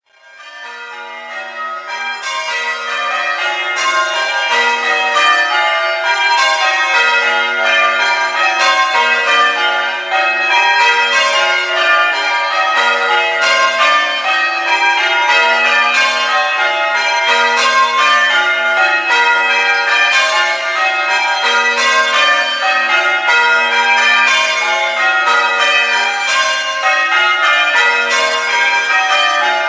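A ring of church tower bells being rung in changes: a steady, unbroken stream of bell strikes in shifting order, fading in over the first few seconds.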